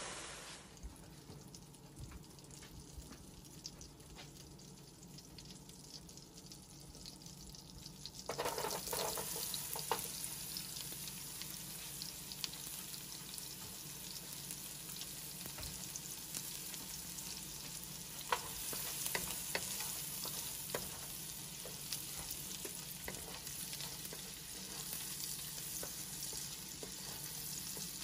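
Diced white onion frying in melted butter in a nonstick wok: a steady sizzle that starts suddenly about a third of the way in, with sharp taps and scrapes of a wooden spoon stirring from about two-thirds in.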